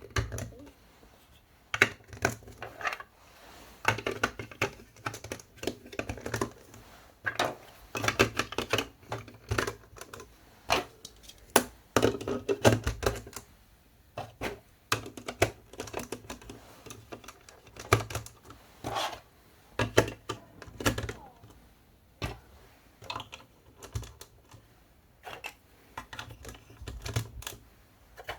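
Marble run building pieces clicking and clattering as they are handled and set together, in irregular bursts of hard taps with short pauses between.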